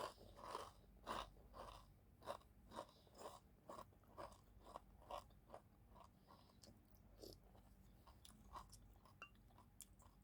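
A person chewing food close to the microphone, with steady chews about twice a second that grow sparser and fainter in the second half.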